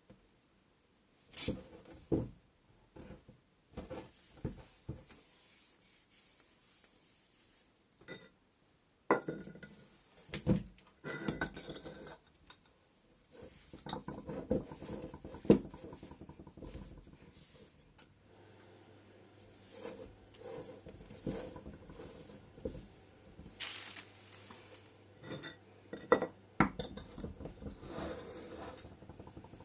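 Ceramic pots knocking and clinking as they are handled: a scattered series of sharp knocks and clinks, some ringing briefly, with quieter rustling and scraping between.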